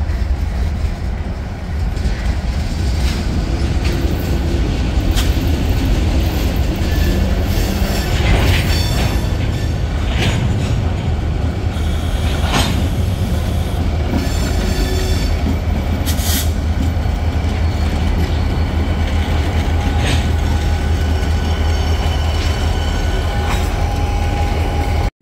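Freight train passing close by: covered hopper cars rolling past with a steady low rumble, wheel clatter over rail joints and a few brief high steel-wheel squeals. In the second half, CN diesel locomotives in the train go by.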